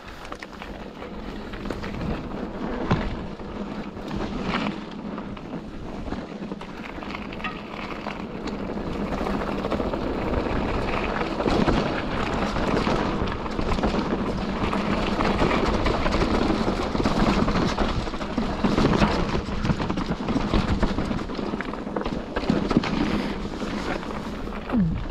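Mountain bike riding fast down rocky singletrack: tyres rumbling and crunching over stone and gravel, with the bike rattling and clattering over rocks and wind rushing over the handlebar-mounted camera's microphone. It grows louder over the first ten seconds or so as the speed picks up.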